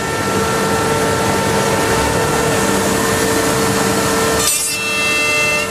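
HOMAG BAZ 32 CNC machining centre machining a wood panel: a steady machine noise with a constant whine. About four and a half seconds in comes a short hissing burst, after which a new, higher whine sets in.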